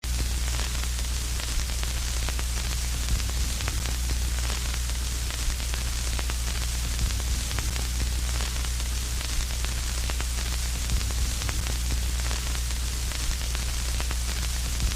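Steady electrical static: an even hiss with a low buzz underneath and scattered crackles.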